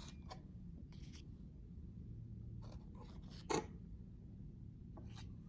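Quiet handling of pastries and their paper cups being set onto a ceramic plate on a stone counter: faint scraping and rustling, with one light clack about three and a half seconds in, over a low room hum.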